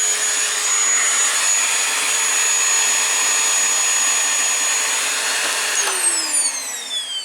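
Vacuum cleaner running with a steady high whine, then switched off near the end: the motor's whine falls in pitch as it winds down.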